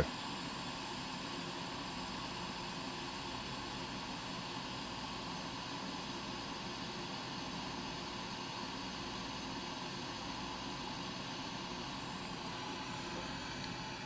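Hot air rework station blowing a steady hiss of hot air onto a laptop circuit board, heating the fluxed solder pads and through-holes of a USB-C connector footprint.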